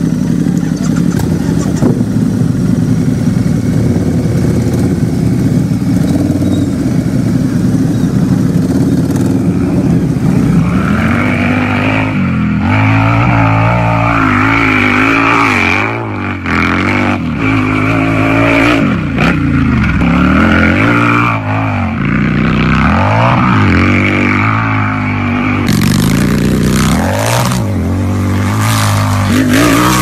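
Motorcycle engine idling with a steady low rumble. From about ten seconds in it is revved again and again, the pitch rising and falling with each blip of the throttle. Sharp cracks come near the end.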